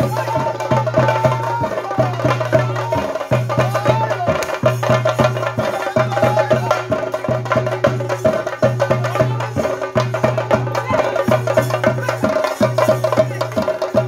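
Theyyam ritual drumming: chenda drums beaten with sticks in a fast, dense, unbroken rhythm of strokes.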